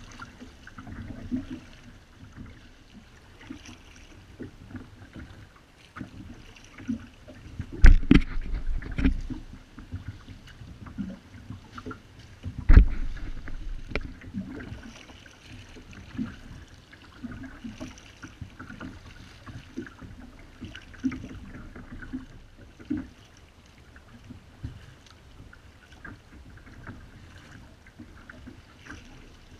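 Kayak paddling: paddle blades dipping and water lapping and splashing against the plastic hull of a Wilderness Systems Ride 135 sit-on-top fishing kayak, with scattered small clicks and two loud thumps about eight and thirteen seconds in.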